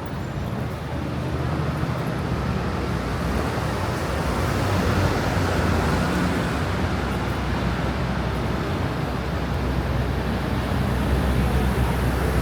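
Street traffic: a motor vehicle's engine running close by with a low hum, over general road noise that grows louder over the first few seconds.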